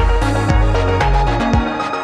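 Electronic music with a steady kick-drum beat, about two beats a second, over a deep bass line that drops out near the end.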